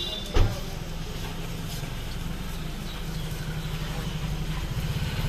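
Potato patties sizzling in oil on a flat iron griddle (tawa), over a steady low rumble. A single sharp knock sounds about half a second in.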